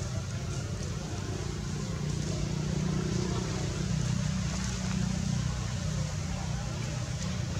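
Steady low background rumble with a faint hiss above it, swelling slightly in the middle.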